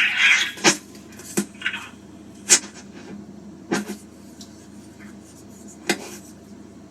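Handling noise over a phone line: a brief rustle at the start, then five sharp clicks and knocks spaced a second or more apart over a steady low line hum.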